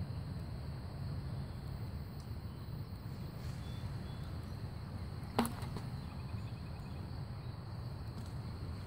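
Steady low outdoor rumble, with one sharp click about five and a half seconds in.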